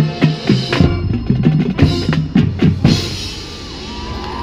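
Marching band with drums and front-ensemble percussion playing the closing hits of its show, heavy drum and bass strikes ending abruptly about three seconds in. Crowd cheering and applause take over as the music stops.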